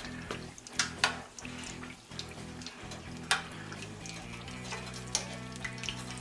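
Chimichangas sizzling in a pan of hot frying oil, a steady hiss with scattered pops and crackles, over background music.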